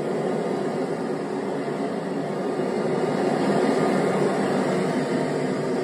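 A steady, even rushing noise with no breaks, like moving air.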